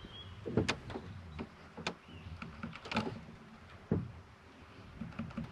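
Canoe being paddled: four hollow knocks about a second apart, as the paddle strikes the canoe hull on its strokes, with a couple of faint bird chirps.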